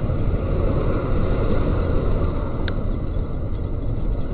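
Steady low rumble of a vehicle on the move, with one faint click about two and a half seconds in.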